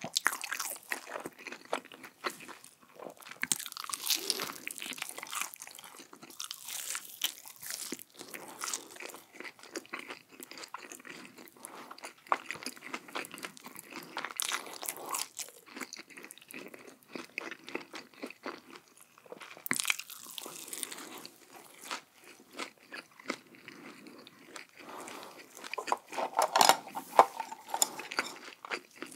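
Close-miked crunching bites and chewing of crispy Korean fried chicken, with a steady run of crackles and louder crunchy bites every few seconds, the loudest near the end.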